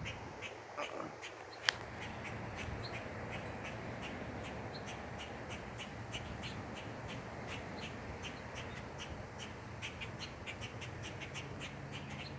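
Starlings giving short, harsh calls over and over, several a second: alarm calls at a rat snake near their nest. A single sharp click a bit under two seconds in.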